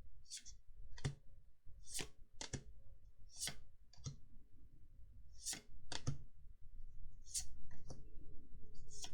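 Magic: The Gathering trading cards being flicked through and set down one by one: about eleven sharp, short clicks at an uneven pace, some with a soft knock on the table, over a faint steady hum.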